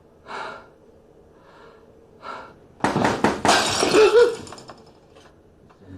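Sudden loud crash of something breaking and shattering about three seconds in, lasting about a second and a half, after a few short breaths or sniffs.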